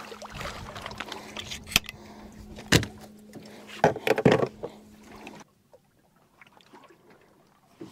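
Several sharp knocks and thumps against the boat as a fish is brought aboard in a landing net and handled, with a faint steady hum underneath. About halfway through the sound drops away to near silence with a few faint ticks.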